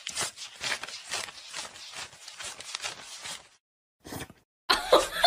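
Paper banknotes being flicked through by hand as they are counted: quick, papery riffling flicks, several a second, for about three and a half seconds, then stopping. Near the end a loud burst of laughter-like sound begins.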